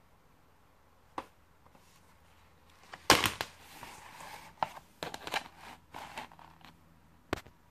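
A stiff cardboard board book being handled and turned over on a wooden surface: a tap about a second in, then a loud knock followed by a few seconds of rustling, scraping and knocks, and a last sharp tap near the end.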